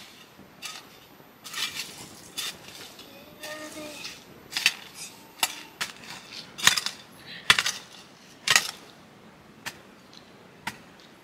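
Kitchen utensils and dishes clinking and knocking against each other, about ten sharp, separate clatters at irregular intervals, as things are handled while cooking.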